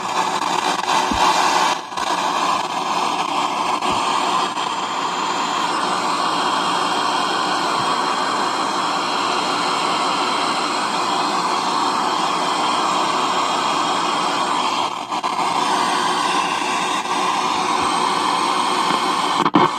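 Nova AM/FM radio's speaker giving out a steady hiss of static, with a few brief dips in level.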